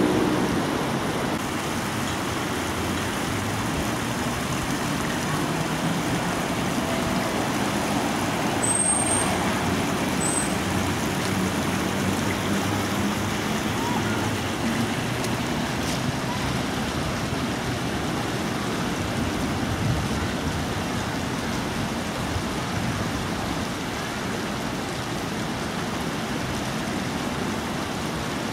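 Steady road traffic noise, an even wash of passing vehicles.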